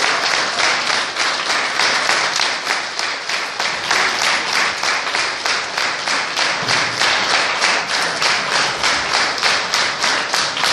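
Audience applauding, clapping together in a steady rhythm of about three claps a second.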